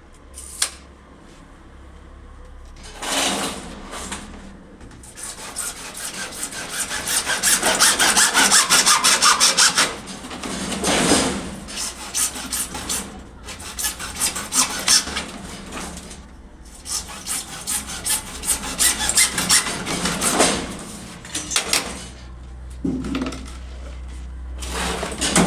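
A hand saw cutting plumbing pipe into pieces in several bouts of fast back-and-forth strokes, with short pauses between cuts.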